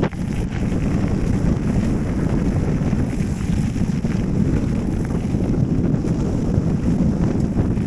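Wind buffeting the microphone of a 360 camera carried by a mountain biker riding a gravel track: a steady low rumble.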